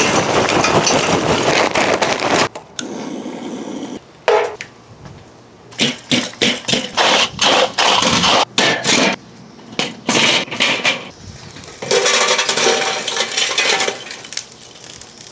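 Lump charcoal clattering as it is poured from a bag into a metal chimney starter, then a run of short knocks and clinks. Near the end, lit coals tumble and crackle as the chimney is dumped into a Weber kettle grill.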